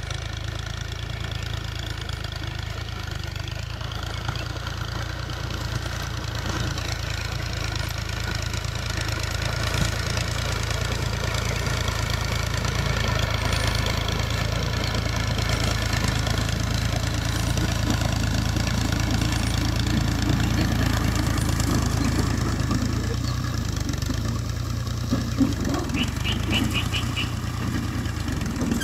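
Al-Ghazi farm tractor's diesel engine running steadily under load as it pulls a seed drill, growing louder as the tractor comes closer.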